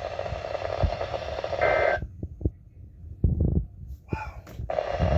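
Weather radio static hiss with a brief two-tone data burst near two seconds in, the EAS end-of-message code, after which the static cuts off abruptly. A few low thumps follow in the quiet, and the static comes back near the end.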